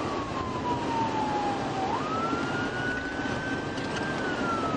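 Police car siren wailing, its pitch sliding slowly down, jumping back up about two seconds in, then rising and starting to fall again. Underneath runs the steady road and engine noise of a car in pursuit.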